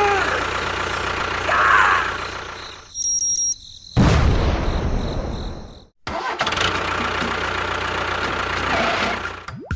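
Engine of a small vehicle running steadily, in several short clips cut together, with a sudden loud start about four seconds in.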